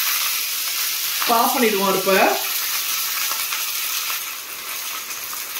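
Fresh curry leaves sizzling and spattering in hot oil with mustard seeds and urad dal in a small kadai, the tempering stage of a chutney. The crackle is strongest at first and slowly eases.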